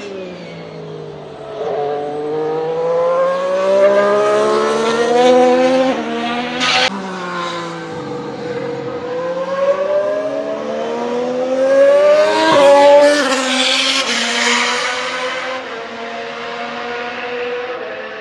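Ferrari SF71H Formula 1 car's 1.6-litre turbocharged V6 running hard. Its pitch climbs, then drops sharply with a crack about seven seconds in, and climbs again. The car passes close about two-thirds of the way through, loudest then, and the sound fades away near the end.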